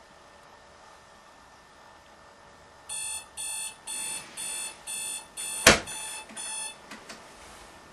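Bedside digital alarm clock beeping, about two beeps a second, starting about three seconds in. Near the middle there is one loud knock as a hand hits the clock, and the beeping stops a second later.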